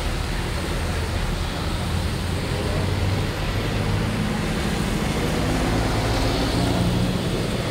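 Road traffic passing on a waterlogged road, tyres hissing through standing water. From about four seconds in, a bus's engine drone grows louder as it passes.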